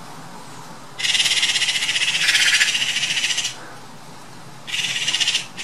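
Eurasian magpies giving their harsh, rattling alarm chatter at a sparrowhawk. There are two bursts: one about two and a half seconds long starting a second in, and a shorter one near the end.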